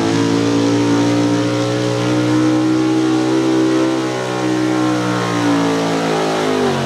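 440-cubic-inch small-block V8 of a 4x4 pulling truck running flat out under load while dragging a pulling sled. The engine note holds high and steady, sags slightly just past halfway and drops in pitch near the end.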